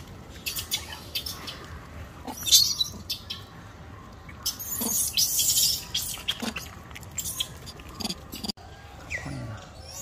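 Scattered soft clicks, scuffs and rustles from a mother macaque and her newborn moving close to the microphone, with the loudest rustle about two and a half seconds in and a longer one around the middle.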